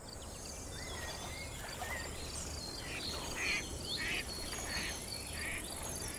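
Birds calling over an outdoor ambience: scattered whistled chirps and glides, a high, evenly pulsing trill throughout, and four short harsh calls at even spacing in the second half, over a low steady rumble.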